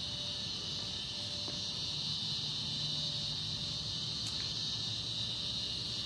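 A steady, high-pitched chorus of cicadas droning without a break, with a low rumble underneath.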